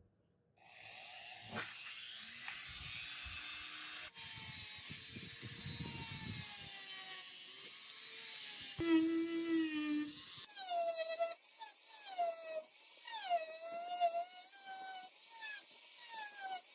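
Handheld rotary tool with a buffing wheel starting up about half a second in and running against a glass sunglass lens, with a steady hiss and high whine. From about nine seconds in, the whine's pitch wavers up and down.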